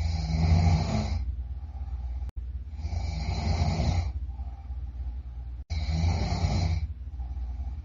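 A person snoring loudly: three long snores, at the start, about two and a half seconds in and nearly six seconds in. Each lasts about a second and a half and has a deep rattling rumble, with quieter breathing between them.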